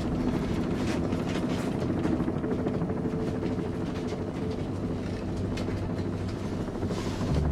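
Steady low drone of a military transport aircraft's engines heard inside the cabin, with a few faint rattles.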